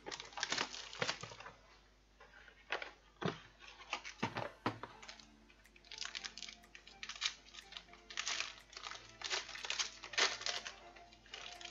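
Foil wrapper of a trading-card pack being torn open and crinkled by hand, in irregular bursts of crackling rustles. Faint background music runs underneath.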